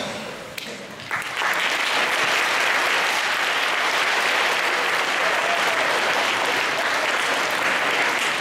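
Audience applauding, the clapping breaking out about a second in and then holding steady.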